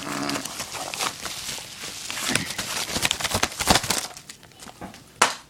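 Packaging being handled and unwrapped: a run of crackling and rustling, with a few sharp snaps, the loudest near the end.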